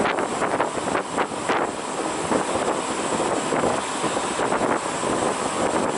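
Diesel pump running with fuel rushing steadily through the nozzle into a semi truck's tank. Wind buffets the microphone a few times in the first second and a half.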